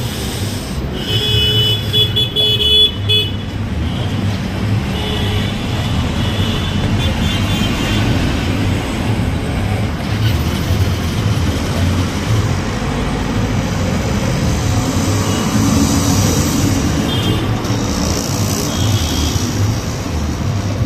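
Busy road traffic: steady engine noise of passing cars and trucks, with vehicle horns honking, most strongly about one to three seconds in and again a few seconds later.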